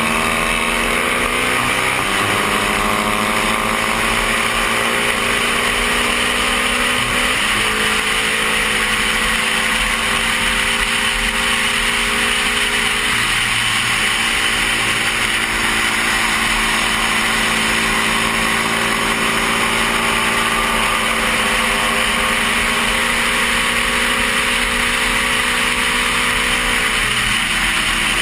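Stock 1972 Honda CB350 parallel-twin engine running hard at racing speed, its pitch climbing and dropping with throttle and gear changes, under a heavy steady rush of wind on a helmet-mounted microphone. The engine will not rev past about 8,500 rpm and falters under full throttle near 8,000 rpm, which the rider suspects is a cam or timing fault.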